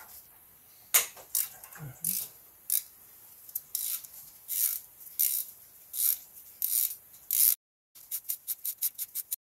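3/8-inch ratchet on a long Torx bit clicking in repeated short strokes as it works a bolt on an EGR cooler, then a quick run of rapid clicks near the end as it spins freely.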